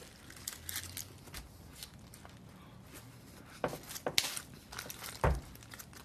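Paper burger wrapper crinkling in the hands as a burger is bitten into and eaten: soft rustling, with a few sharper crackles in the second half.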